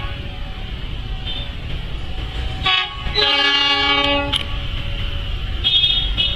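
Train horn sounding over a steady low rumble of a train: a brief toot, then a blast of about a second made of several notes at once, and a couple of shorter toots near the end.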